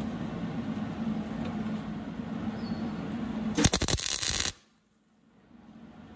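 A steady low hum, then about three and a half seconds in an electric welding arc crackles for about a second as a short tack weld is laid on a steel brace, cutting off abruptly.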